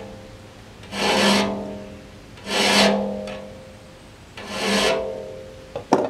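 Three slow strokes of a hand tool, most likely a file, across a tooth of a large steel circular sawmill blade, about a second and a half apart. Each stroke sets the blade ringing with a steady tone, and the tone changes as the tool gets down into the tooth.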